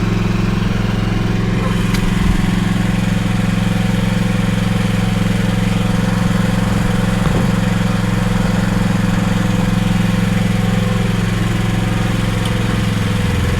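Engine running steadily at an even, unchanging speed, with a constant low hum.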